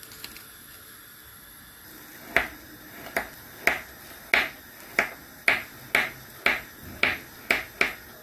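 Kitchen knife chopping crab sticks on a plastic cutting board: about eleven sharp knocks of the blade against the board, roughly two a second, starting about two seconds in.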